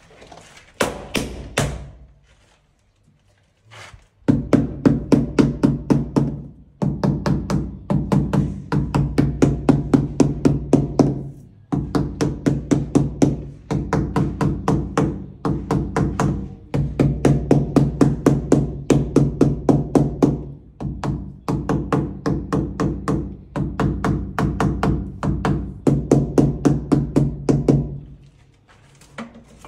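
Rubber mallet tapping a large ceramic wall tile to bed it into the adhesive: quick, even taps about five a second in long runs with short pauses, each with a low, hollow, drum-like ring.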